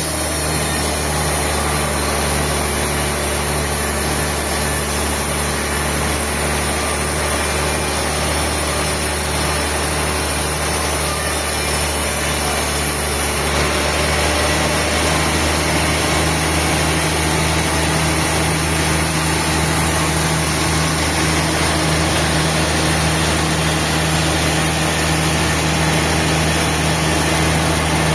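Sawmill machinery running steadily: an even, continuous motor hum with no breaks, its high hiss changing about halfway through.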